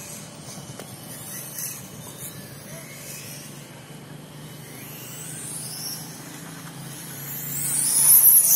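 1/5-scale radio-controlled motorcycle running on the track, its high-pitched motor sound growing louder and peaking near the end as it passes close by.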